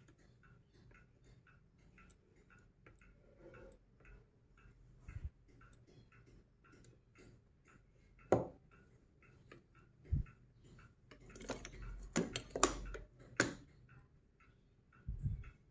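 Plastic-capped magnetic balls and sticks of a construction toy clacking as the pieces snap together. There are single sharp clacks about halfway through, a quick cluster of them a little later, and one more near the end. Under it runs a steady faint ticking.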